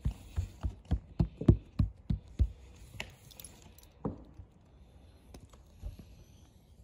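Hands patting and pressing a folded, filled kutab of thin dough flat against a silicone mat: a quick run of soft thumps, about four a second, for the first two and a half seconds. Then a sharper metal click and a single knock as a metal pastry wheel is picked up and set to the dough.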